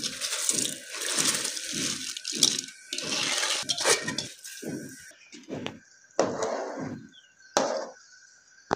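Rice being tipped into a pot of boiling water, with a quick run of splashing sloshes about two to three a second that slow and thin out in the second half.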